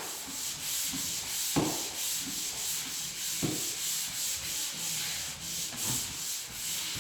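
Drywall joint compound on a butt joint being sanded by hand, a steady scratchy hiss that pulses with back-and-forth strokes. A few light knocks come through about a second and a half, three and a half and six seconds in.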